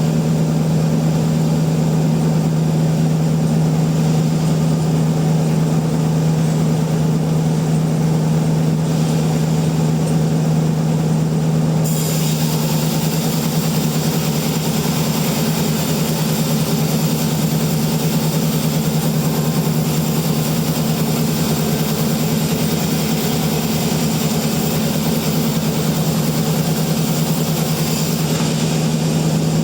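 Sawmill machinery running with a steady low hum. About twelve seconds in, a high hiss joins the hum and lasts until near the end.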